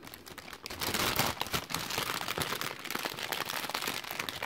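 Thin clear plastic bag crinkling as a hand rummages inside it: a dense, continuous run of fine crackles.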